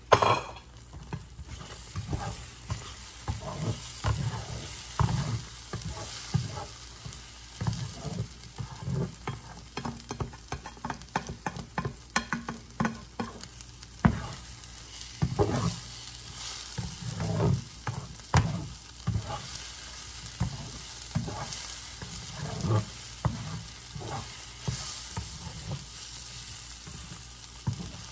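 Plastic spatula stirring and scraping scrambled eggs with spinach and sausage around a nonstick frying pan, with irregular knocks against the pan, while the eggs sizzle steadily.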